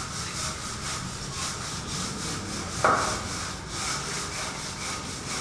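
Rhythmic scraping strokes, about four a second, like a tool worked back and forth on a rough surface, with one sharp knock about three seconds in.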